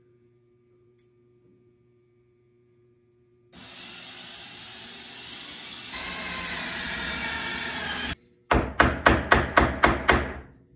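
Cordless drill boring into a wooden screwdriver handle, running steadily for about four and a half seconds, getting louder partway through, then stopping. Then a quick series of about eight sharp knocks as the handle is driven onto the screwdriver's tang.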